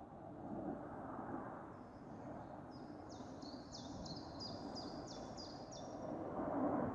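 A small songbird singing a run of about eight quick, evenly repeated notes, each sweeping downward, over a steady low background rumble.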